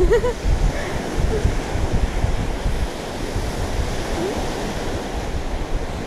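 Sea surf breaking on a shell-and-pebble beach, with wind buffeting the microphone in low gusts.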